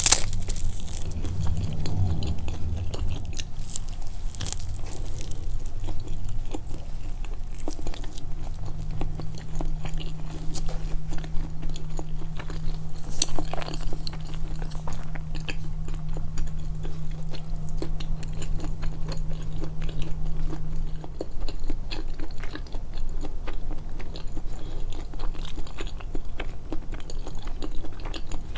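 Close-miked, amplified chewing and biting of food: a continuous stream of small irregular mouth clicks and crunches. A faint steady low hum runs underneath for part of it.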